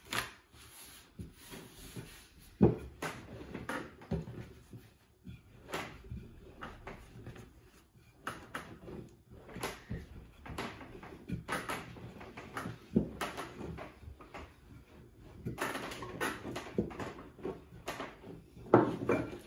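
Wooden rolling pin rolling out a thin sheet of fresh egg pasta dough on a wooden table: a run of irregular knocks and rolling strokes as the pin is pushed and pulled and the sheet is handled.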